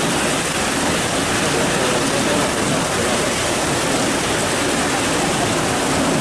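Floodwater rushing, a loud, steady wash of water noise.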